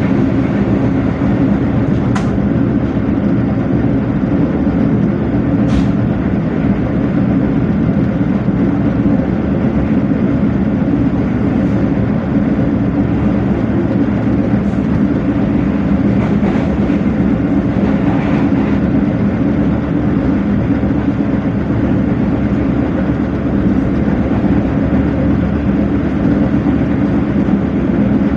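Green Line Express passenger train running along the track, heard from inside the coach: a steady rumble of wheels and carriage, with two sharp clicks about two and six seconds in.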